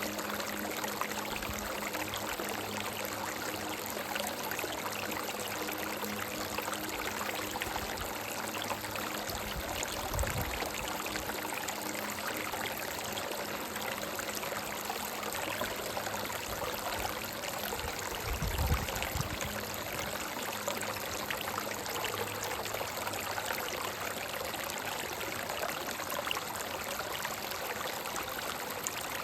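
Stream of water running steadily over rocks. There is a low thump about ten seconds in and a louder one about eighteen and a half seconds in.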